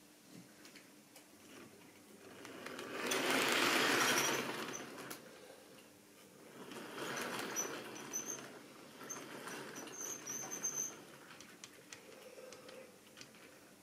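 Model railway goods wagons running past on a curve of track: a rattling rumble of small metal wheels with quick clicks over the rail joints, swelling loudest about three to five seconds in and twice more after. Brief high squeaks come near the middle.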